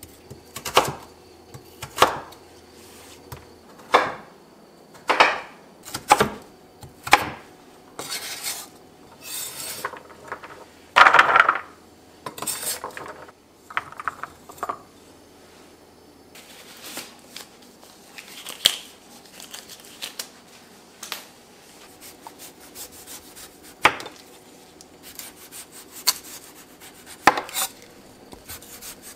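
A cleaver chopping purple sweet potato on a wooden cutting board, with a sharp knock about once a second. Around the middle, the diced pieces clatter and rub as they go into a white tray. Near the end, knocks and scraping as a knife peels taro on the board.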